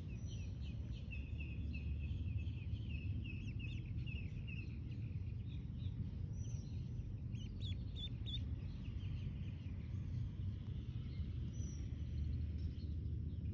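Duckling peeping in quick runs of short, high chirps for the first few seconds, then only now and then, over a steady low rumble.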